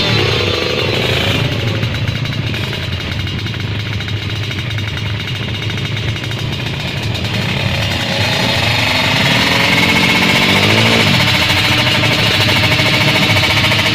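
Drag-race motorcycle engines running with a rapid rattle, the pitch falling off in the first second and then rising again as an engine is revved up about eight seconds in, before dropping back to a steady buzz near the end.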